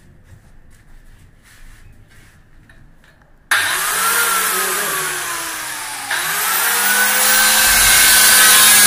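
Handheld electric tile cutter (marble cutter) with a diamond blade: a few seconds of faint handling, then the motor switches on suddenly about a third of the way in and whines up to speed. Its pitch sags, is pushed up again about two seconds later, and settles to a steady, loud high whine.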